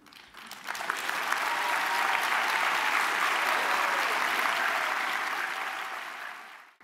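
Large audience applauding. The clapping builds within the first second, holds steady, then fades and cuts off near the end.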